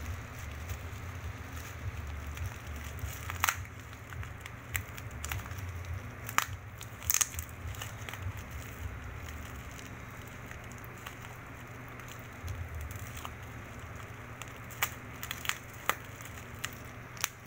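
Bubble wrap and plastic packaging being unwrapped by hand: crinkling and crackling, with scattered sharp clicks at irregular moments. A steady low hum runs underneath.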